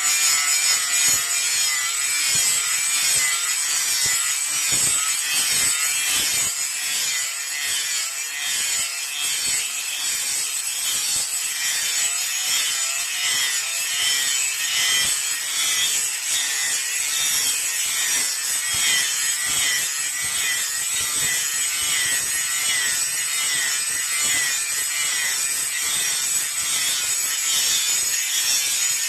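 Steel blade being worked against an abrasive: a continuous, loud scraping hiss with steady high-pitched tones over it.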